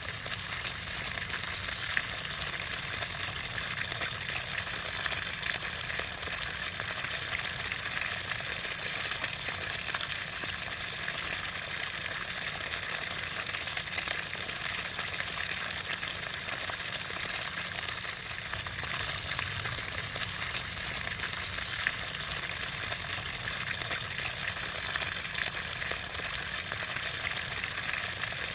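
Steady rush of running water, an even hiss with no rhythm or pauses.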